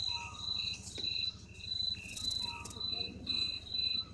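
Crickets chirping in an even, repeating rhythm of about two to three high chirps a second, over a steady low hum.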